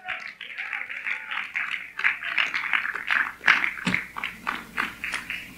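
A small congregation applauding with scattered, uneven hand claps that die away near the end.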